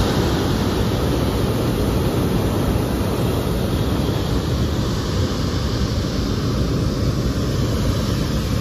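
Hot-air balloon's propane burner firing in one loud, steady blast.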